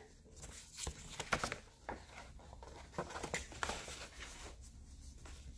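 Light taps and soft rustles of a hardcover book being handled and turned over, a few small knocks about one to three and a half seconds in.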